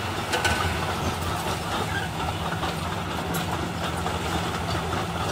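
Heavy diesel engines running steadily: a dump truck with its bed raised tipping out a load of dirt, and a bulldozer working close by. There are a few small knocks from soil and clods spilling off the bed near the start.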